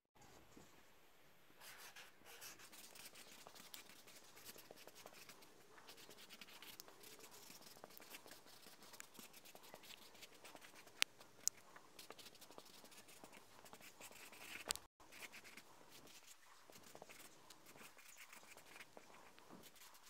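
Black marker pen writing on paper: faint, continuous scratching of the felt tip in many short strokes. Two sharp ticks close together about eleven seconds in.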